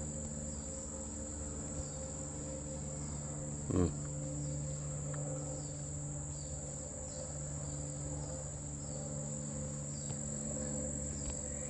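Steady high-pitched insect chorus in summer woodland, with a brief low bump about four seconds in.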